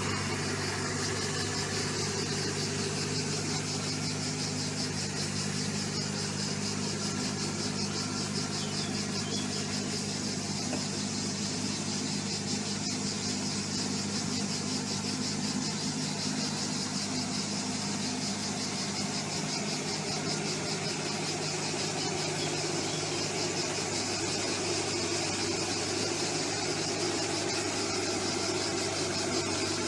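Heavy machine's engine running steadily with a low hum.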